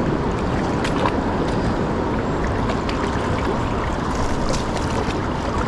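Strong wind buffeting the microphone: a steady, dense rumble with no breaks.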